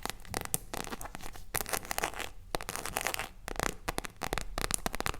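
Close-miked ASMR tapping and scratching: a dense run of irregular crackly taps and scratches, with a brief lull about two and a half seconds in.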